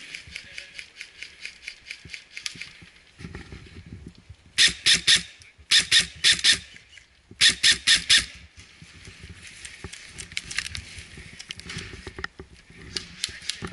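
An airsoft rifle firing three quick strings of three or four sharp shots each, from about four and a half seconds to eight seconds in. Fainter rapid clicking of shots comes before and after.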